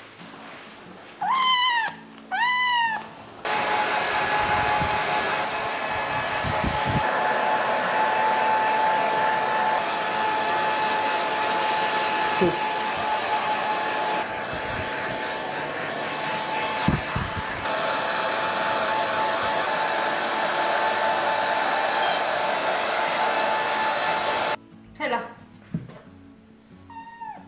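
A kitten meows twice. A handheld hair dryer then switches on and runs steadily with a constant whine, blow-drying the kitten's wet fur, and cuts off abruptly near the end. More kitten meows follow.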